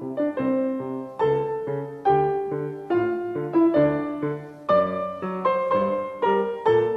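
Background piano music: a steady run of struck notes, each fading after it is played.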